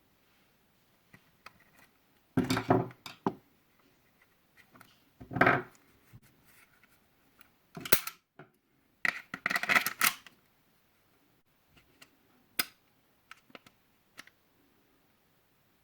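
Clicks and short clattering rattles of hard parts of an Umarex Glock Gen 5 air pistol being handled. They come in a handful of separate bursts, the loudest about two and a half seconds in, around five and a half seconds, and between eight and ten seconds.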